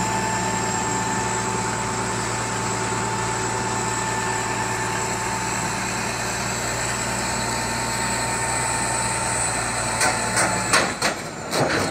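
Diesel engine of a tipped-over rough-terrain mobile crane idling steadily with a constant hum. Near the end the engine sound cuts off and a few sharp knocks follow.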